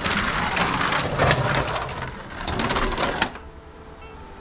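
Two GUDI brick-built toy race cars rolling down a race track, their plastic wheels and bodies rattling and clattering loudly. The clatter stops fairly suddenly about three seconds in.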